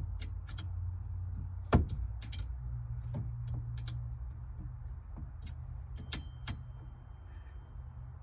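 Hand tools clicking and knocking against the bolts and steel of a roll bar being tightened down, in scattered sharp clicks with one louder knock about two seconds in. A steady low hum runs underneath.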